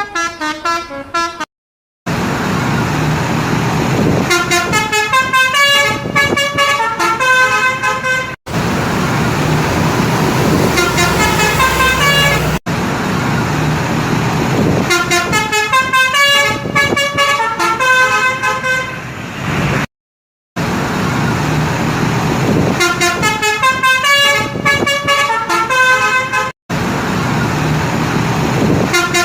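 Tour buses sounding 'telolet basuri' multi-tone musical horns: rapid runs of high tooting notes playing short tunes over engine and traffic noise. The sound comes as several separate clips, cut apart by brief moments of silence.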